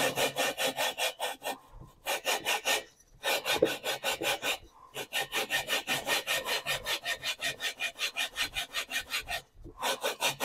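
Gritty scraping of a VW Type 4 cylinder barrel being lapped onto its cylinder head with grinding compound, twisted back and forth by hand at about six strokes a second, with short pauses. The compound is grinding the barrel's end and the head's seat into a true metal-to-metal seal.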